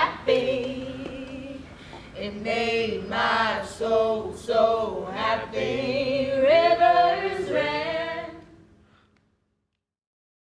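Several voices singing together a cappella, fading out about eight and a half seconds in to silence.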